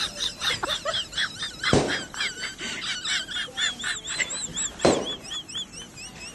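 Birds calling in a rapid run of short, high, arching chirps, broken by two sharp knocks.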